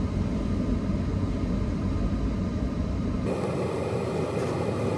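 Steady low engine and road rumble inside a pickup truck's cab as it moves off. A little over three seconds in the sound changes abruptly: the low rumble drops away and a brighter steady noise takes over.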